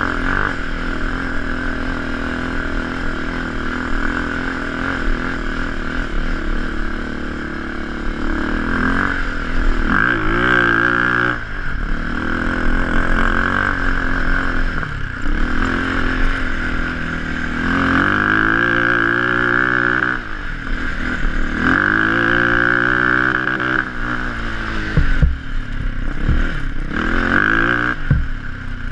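Bombardier DS650 sport ATV's single-cylinder four-stroke engine under the rider, revving up and easing off again and again as the quad is ridden hard.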